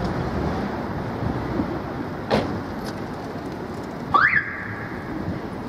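Steady city street traffic noise from passing cars, with a sharp click a little past two seconds and a short, loud rising squeal about four seconds in.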